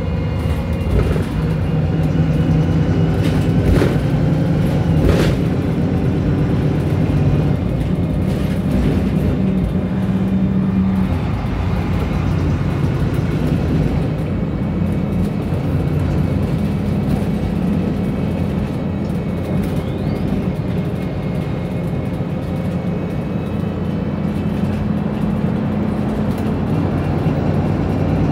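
Wright Pulsar single-deck bus heard from inside the passenger saloon: engine running under way, its note stepping up and down several times, with a few sharp rattling knocks in the first few seconds from a bus its filmer calls extremely rattly.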